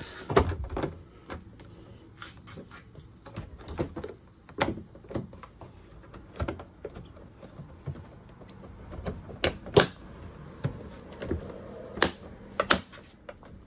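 Irregular plastic clicks and knocks as a Toyota RAV4 liftgate trim piece is handled and its clips are pushed into place, with two sharp snaps about ten seconds in and two more near the end.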